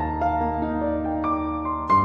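Soft background music: piano or keyboard notes over a sustained low bass, with a new chord coming in near the end.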